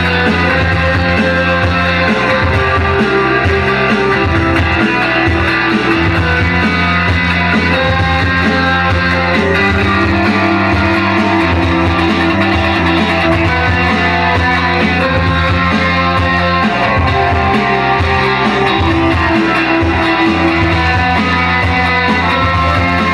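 Live rock band playing: electric guitar and keyboard over a low, shifting bass line, loud and continuous.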